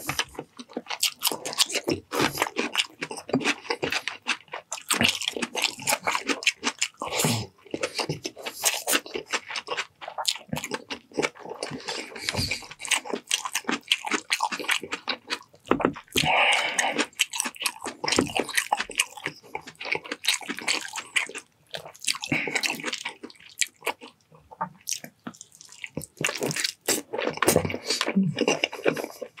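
Close-miked chewing and wet mouth sounds of a person eating chicken adobo braised in coconut milk: a dense run of quick smacks and clicks.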